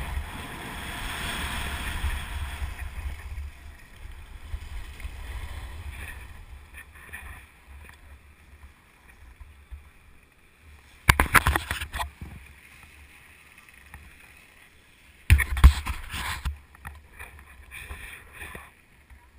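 Skis hissing over packed snow with wind rumbling on the microphone, fading as the skier slows to a stop. Then two brief loud bursts of knocking and scraping, about eleven and fifteen seconds in.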